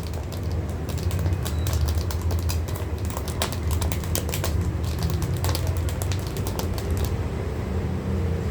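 Rapid, irregular clicks and taps, as of a hard plastic tablet case being handled and scrubbed, over a steady low hum. The clicking stops about seven seconds in.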